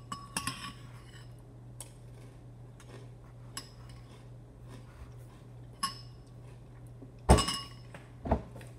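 Metal spoon clinking against a cereal bowl, a few separate ringing clinks spaced out, with two louder knocks near the end.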